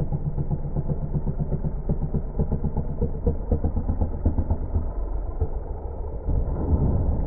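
Piston engine and pusher propeller of an Akoya amphibious light aircraft running steadily with a rapid pulsing beat as it flies low over the water. About six seconds in the hull touches down on the lake, and a louder rush of water spray joins the engine.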